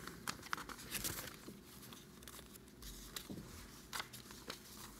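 Paper sheets being handled and turned close to a lectern microphone: faint, scattered crinkles and soft clicks.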